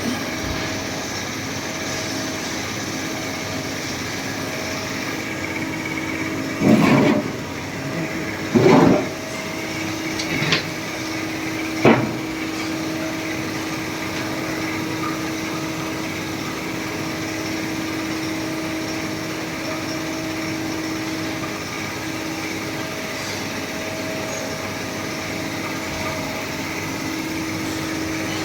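Jaewoo ART 200 S+ CNC turning centre running with a steady mechanical hum. There are four short, louder bursts in the first half, and a steady tone holds from about a third of the way in.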